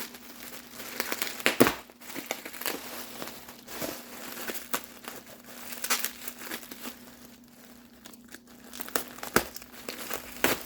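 Packing material crinkling and rustling as it is handled and pulled out of a cardboard box, with irregular crackles and a few sharper snaps.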